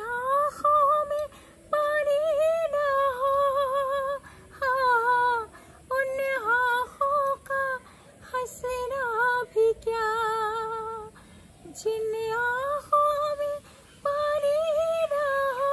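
A woman singing solo without accompaniment in a high voice, in phrases of long held notes that waver in pitch, separated by brief pauses for breath.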